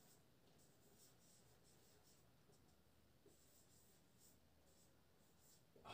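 Near silence, with faint, short, irregular squeaks of a marker pen writing on a whiteboard.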